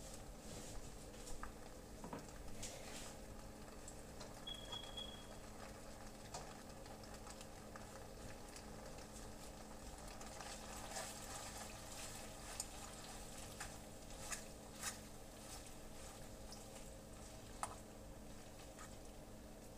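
Faint, scattered taps and clicks of a utensil and dish as macaroni and cheese is put together by hand, over a steady low hum. A brief high beep sounds about four seconds in.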